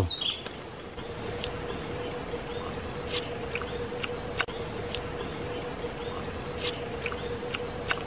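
Forest ambience: an insect's steady high-pitched trill, starting about a second in, over a lower steady hum, with a few faint scattered clicks.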